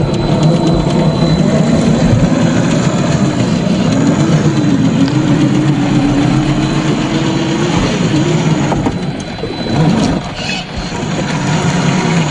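Radio-controlled dump truck running, its motor sound wavering up and down in pitch with throttle changes and dropping off briefly about nine seconds in before picking up again.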